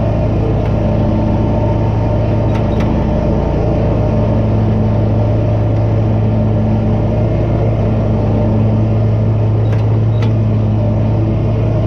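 Hustler X-One zero-turn mower running at a steady speed, its engine giving a constant low hum with a few faint ticks over it.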